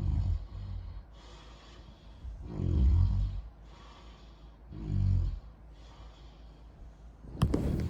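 Loud snoring, a snore about every two and a half seconds, over the steady hiss of a fan. The last snore, near the end, begins with a sharp click.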